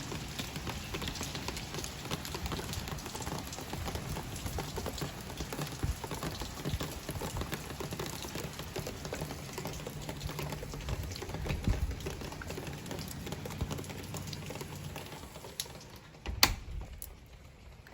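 Heavy rain pattering steadily, a dense rush of fast drop hits. A single sharp knock sounds about sixteen seconds in, after which the rain is quieter.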